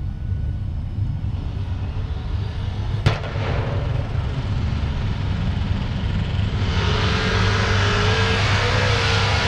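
Drag-race car engines rumbling low, with one sharp crack about three seconds in. From about two-thirds of the way through, the engines open up much louder as the cars accelerate down the strip.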